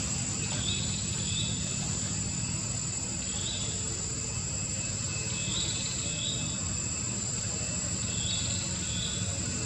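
Steady, high-pitched insect drone, with short chirps coming in pairs every couple of seconds over a low steady rumble.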